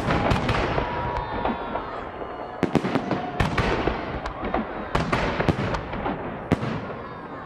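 Festive fireworks salute: shells bursting in rapid succession, a dense run of sharp bangs, each trailing off, easing off near the end.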